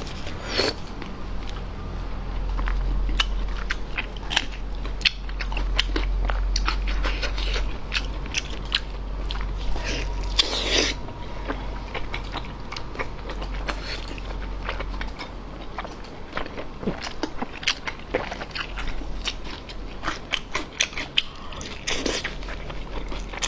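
Close-miked chewing, biting and wet lip-smacking of someone eating braised pork belly and raw garlic cloves, in irregular clicks with a louder burst about halfway.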